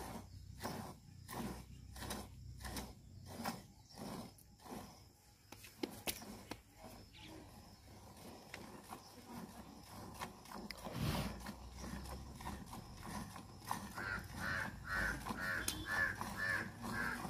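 A cow being milked by hand into a steel pail: squirts of milk hitting the bucket in a steady rhythm, about two a second, for the first several seconds, then softer. A quick, higher pulsing, about three or four a second, joins in near the end.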